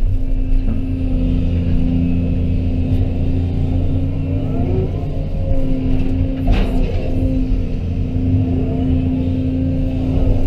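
Heavy earthmoving machine's diesel engine running steadily as it works dirt, with a single sharp clank about six and a half seconds in.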